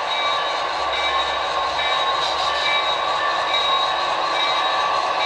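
Sound-equipped model diesel switcher locomotives running, their onboard sound playing a steady diesel engine sound through small speakers, with thin high whining tones.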